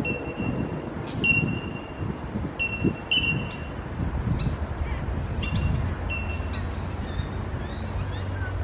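Bell miners (bellbirds) giving their ringing single-note 'tink' calls, a high clear note repeated about once a second, with a few quick falling notes near the end. A steady low rumble, like distant traffic, runs underneath.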